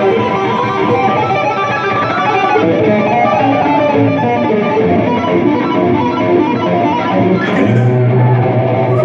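Double-neck electric guitar played alone, a run of single notes with bends that rise and fall, and a low note held near the end.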